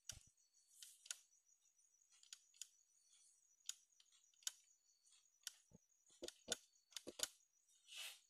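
Faint, irregular light clicks and ticks from a sewing machine's mechanism being worked by hand, about fifteen in all, several coming in quick succession near the end.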